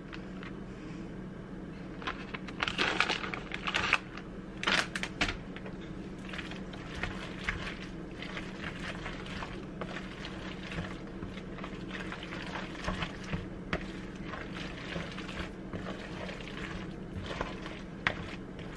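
Plastic shredded-cheese bag rustling, then a spoon stirring a thick, cheesy pasta mixture in a plastic bowl, with soft scrapes and clicks, over a steady low hum. The rustling and scraping come in short bursts during the first few seconds, and the stirring goes on more quietly after that.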